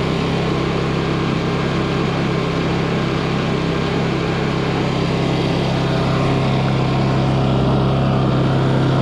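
Honda portable generator's small engine running at a steady speed with an even hum.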